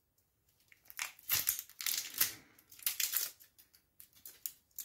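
The dry, papery skin of a red onion crackling and tearing as it is peeled off by hand. It comes as a run of irregular crinkly crackles, starting about a second in.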